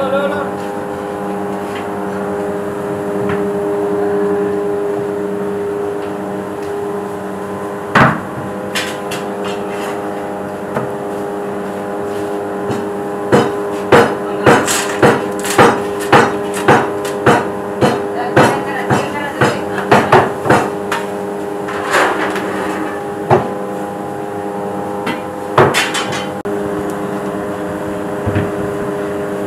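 A run of sharp knocks, about two a second for several seconds, as hot coals are dropped onto the metal lid of a large dum biryani pot. There is one knock earlier and a few more later, all over a steady droning hum.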